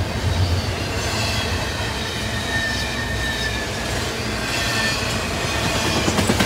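Double-stack intermodal well cars rolling past on steel wheels: a steady rumble from wheels on rail, with faint thin wheel squeals and a short clatter of clicks near the end.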